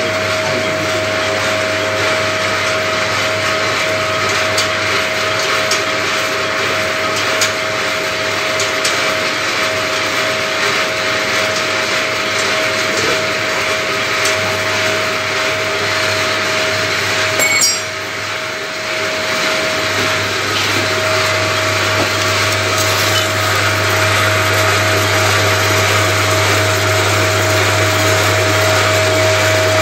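Electric motor running a homemade plastic pelletizing machine through a belt and reduction gearbox: a steady machine hum with a steady whine. Just past the middle it briefly dips with a click, then it picks up again and runs on.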